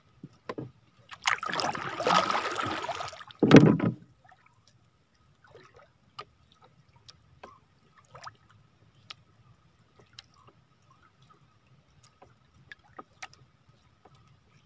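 Water splashing at a small outrigger canoe for about two seconds, then a single heavy thump on the boat. After that only faint, scattered small clicks as the fishing handline is handled.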